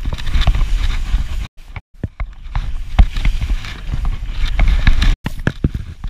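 Skis scraping and sliding through snow during turns, with wind rumbling on the microphone and sharp scrapes and knocks scattered through; the sound cuts out briefly a few times.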